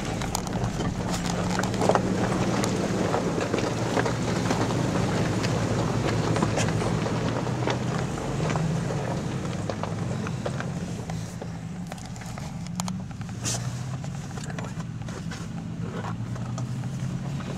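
Inside a 2010 Toyota FJ Cruiser's cabin, its 4.0-litre V6 running at low revs while crawling over a rocky trail, the revs rising and falling a little. Rocks crunch and knock under the tyres throughout, easing off somewhat in the last few seconds.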